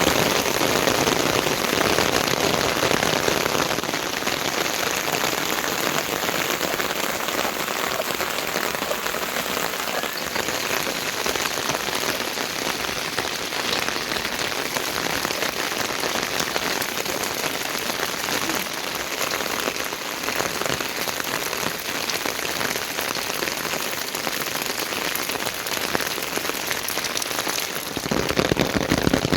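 Heavy rain falling steadily: an even hiss of dense patter, growing louder about a second before the end.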